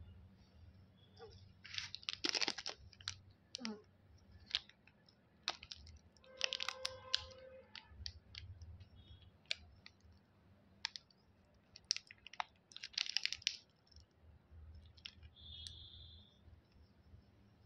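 Candy packaging being handled and opened: a plastic wrapper crinkles in three short bursts between scattered sharp clicks and taps.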